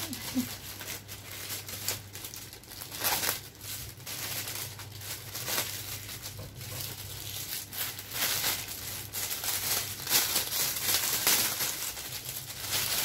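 Clear plastic packaging bags crinkling and rustling in irregular bursts as microphone-kit parts are handled and pulled out of them.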